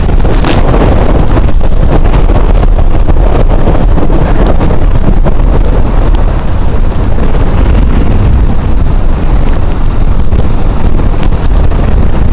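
Hurricane-force wind buffeting the microphone: a loud, deep, unbroken rush of wind noise.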